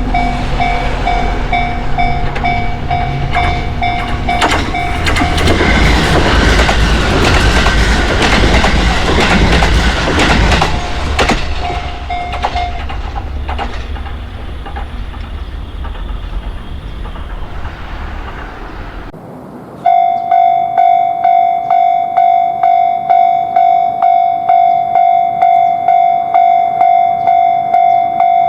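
Japanese level-crossing bell ringing in a steady beat as a diesel train passes, its wheels clacking over the rail joints. The bell stops about halfway through and the train fades away. After a short break, another crossing bell starts ringing loud and close, about two strokes a second.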